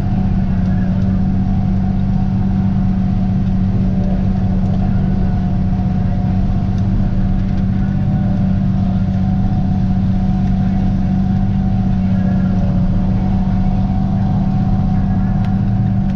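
Tractor engine running steadily under load while the pull-type forage harvester it drives chops standing corn: a loud, even drone with a strong constant low hum.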